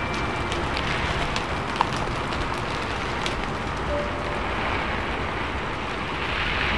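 Car driving in rain: a steady hiss of rain and tyres on wet road, with scattered ticks of drops striking and one sharper tick about two seconds in.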